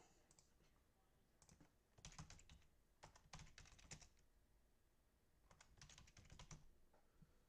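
Faint typing on a computer keyboard, in three short runs of quick keystrokes.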